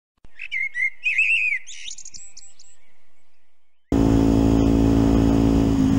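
Birdsong: a quick run of chirps and trills lasting about two and a half seconds, then fading away. About four seconds in, it cuts suddenly to the steady running of a Yamaha WR125X's single-cylinder engine on the move, with a rush of wind noise.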